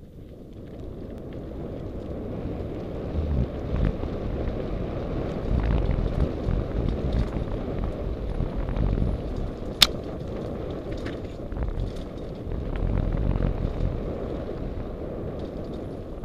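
Mountain bike running fast down a dirt trail: a loud rush of wind on the microphone mixed with tyre noise and small knocks from the bumpy ground, building up over the first two seconds. One sharp click stands out about ten seconds in.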